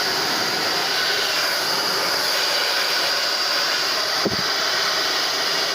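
TAIFF 2100 W hair dryer running steadily, blowing air with an even rush and a steady high whine, without the squeal it had before its motor bearings were cleaned of hair and greased. A single short click about four seconds in.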